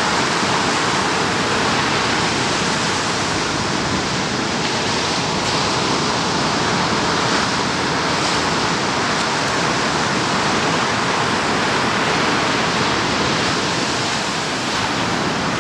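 Ocean surf: a steady, even rush of small waves breaking and white water washing.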